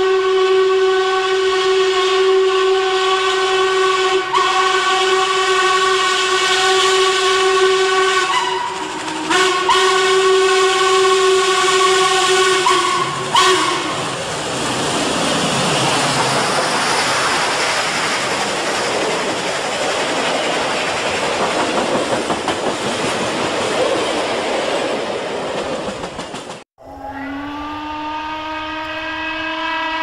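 Norfolk & Western steam locomotive whistle blowing a long blast, with a brief dip in pitch about eight seconds in, and sounding on until about 13 seconds. Loud, steady rushing noise of the steam train running by follows. After a sudden break near the end, another steam whistle comes in, rising in pitch as it opens, then holding.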